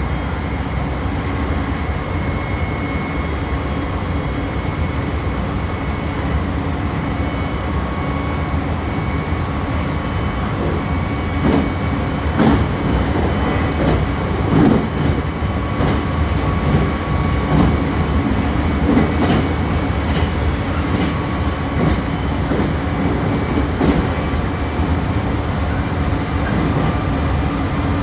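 Meitetsu 3150 series electric train running at speed, heard from inside the car: a steady rumble of wheels and running gear with a faint even whine. About halfway through, the wheels clack over the rails in a series of irregular clicks and knocks.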